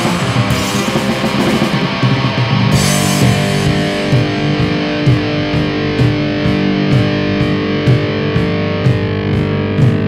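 Lo-fi black metal demo recording built on distorted electric guitars. About four seconds in, the dense wall of sound thins to held chords over a steady beat of about two hits a second.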